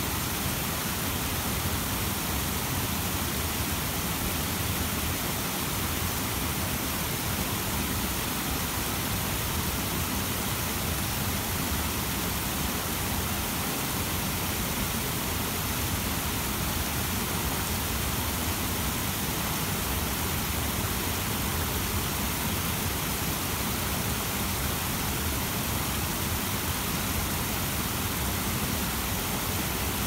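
Small waterfall pouring over a low rock ledge into a foaming pool: a steady, unbroken rush of splashing water.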